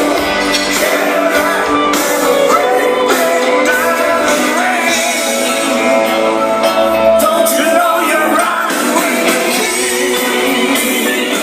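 Rock-style music with a singing voice and a steady beat.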